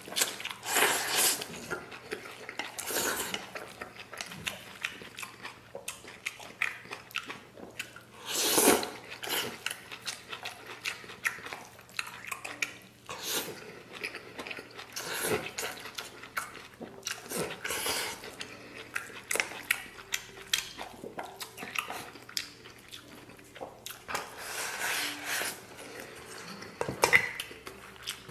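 A person slurping noodles and chewing, with a slurp every few seconds, and chopsticks clicking against a stainless steel bowl.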